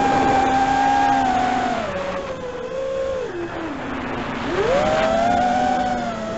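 FPV quadcopter's brushless motors and propellers whining. The pitch holds steady, falls over a couple of seconds as the throttle eases off, then climbs sharply about four and a half seconds in as the throttle is punched.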